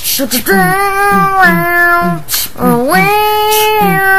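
A child's voice singing long held notes over a quick repeating low beat: two sustained phrases, the second rising into its note, each sliding down at the end.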